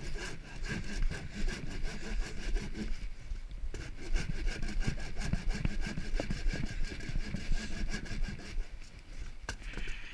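A coarse-toothed sander rasping against the weathered bark surface of a small log, a rough, rapid scraping of wood with a brief break about a third of the way in.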